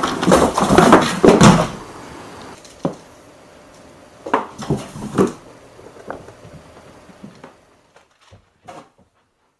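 A loud clattering of household objects for about a second and a half, followed by five or six separate knocks that fade toward the end.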